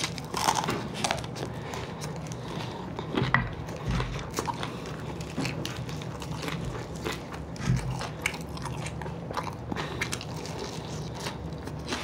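Close-up chewing and biting of crispy fried chicken wings, with irregular crunchy clicks throughout. Two dull low thumps come about four and eight seconds in.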